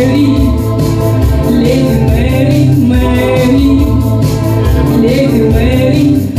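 A woman singing into a handheld microphone with instrumental accompaniment that has a steady beat and a strong bass line.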